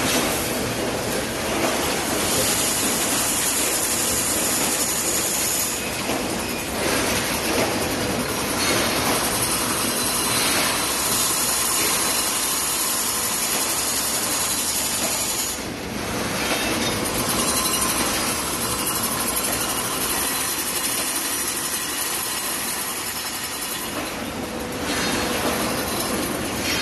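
Steady mechanical din of a wire mesh welding line running, a dense rushing hiss with no clear rhythm that swells briefly a few times.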